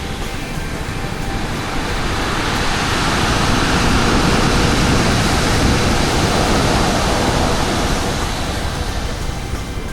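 Sea surf: the rush of a wave swells over a few seconds and then fades away.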